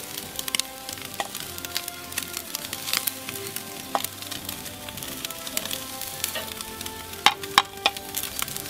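Ribeye steaks sizzling on a charcoal grill grate, a steady hiss broken by frequent sharp, irregular pops and crackles, with a cluster of louder pops near the end.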